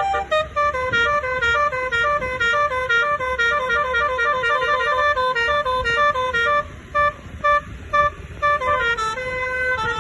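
Bus basuri musical horn (telolet) playing a fast melody of short notes, about four or five a second. About two-thirds of the way through, the notes break up into separate short blasts with gaps between them.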